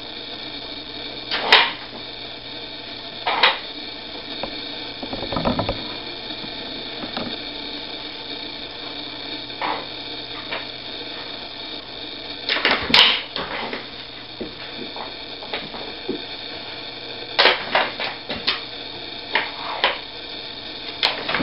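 Plastic sliders and lids of a Dog Brick treat puzzle clacking and rattling as a dog works them with nose and paws: scattered sharp clacks, thickest near the end, over a steady background hum.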